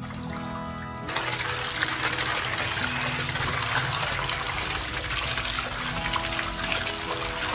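Tap water running hard into a bamboo basket and splashing into a basin of water as hands rub and wash wood ear mushrooms; it starts about a second in, with background music under it.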